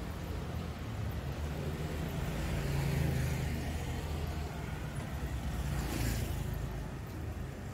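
Motorcycle engine running as it rides along the street, its hum growing louder toward about three seconds in, with a brief hiss around six seconds.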